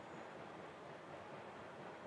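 Faint, steady outdoor background noise, an even wind-like hiss with no distinct events, and a brief faint high chirp right at the start.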